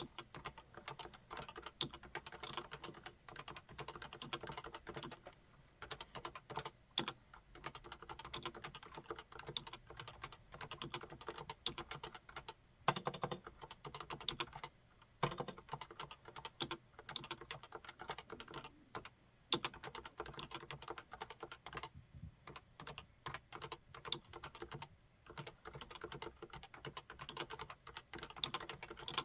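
Typing on a Realforce 101 full-size keyboard with Topre electrostatic capacitive switches: a fast, steady run of keystrokes broken by a few short pauses, with an occasional heavier, deeper stroke.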